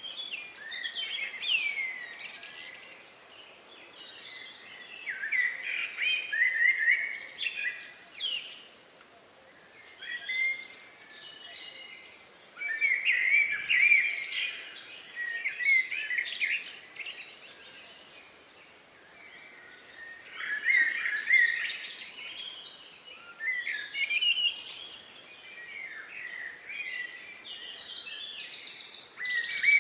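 Several songbirds singing at dusk in the countryside, phrases of quick chirps and whistles coming in bouts every few seconds with short pauses between.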